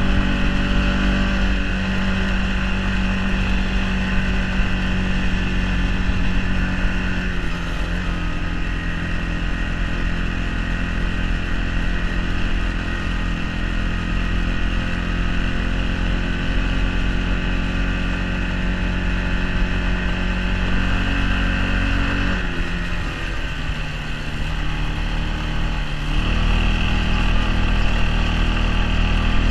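Arctic Cat 454 ATV's single-cylinder four-stroke engine running under throttle while riding. The pitch drops about seven seconds in. Around twenty-two seconds the throttle comes off and the engine runs lower and quieter for a few seconds, then picks up and gets louder again near the end.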